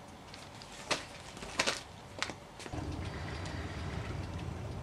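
A few sharp knocks, then, from about three seconds in, a car engine running steadily at low speed: the 1969 MGB's 1.8-litre four-cylinder engine as the car is lined up on the lift.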